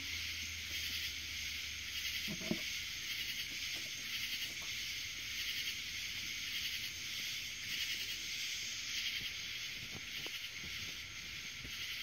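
Steady chorus of insects, a dense high buzz with an even pulsing, with a soft knock about two and a half seconds in.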